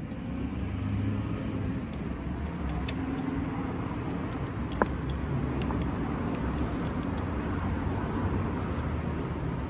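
Steady low rumble of passing road traffic, with a few light metal clicks from handling the brake parts, one sharper click about five seconds in.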